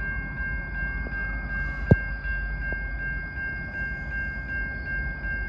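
Railroad grade-crossing warning bell ringing evenly, about two and a half strokes a second, over a low rumble, with one sharp knock about two seconds in.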